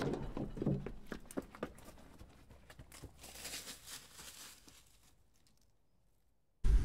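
Footsteps crunching on a dirt trail, many quick steps that fade away over the first few seconds. Then come a couple of seconds of dead silence, cut off near the end by a sudden rush of wind on the microphone.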